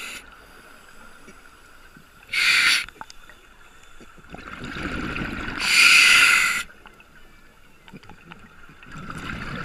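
Scuba diver breathing underwater through a regulator, recorded by a GoPro in its housing: two loud rushes of air and bubbles, about two and a half and six seconds in, with low bubbling between them.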